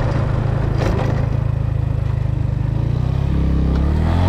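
Motorcycle engine running while riding on a loose sand track, with a sharp knock about a second in. Near the end the engine revs up and its pitch rises.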